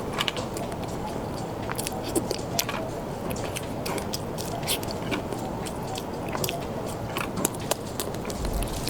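Close-up eating sounds: a person biting and chewing food, with irregular sharp clicks and crunches from the mouth.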